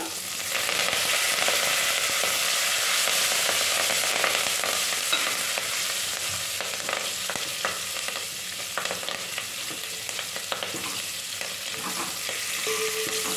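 Fresh curry leaves hitting hot oil in a steel pot with mustard seeds, dried chillies and crushed garlic, a tempering being fried: the sizzling jumps up about half a second in and slowly eases over the following seconds. A steel ladle stirs and clicks against the pot.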